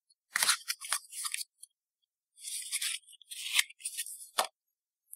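Foam packaging insert rubbing and scraping as a small metal vape tank is worked out of its cut-out, in two short spells. A single sharp tap comes near the end.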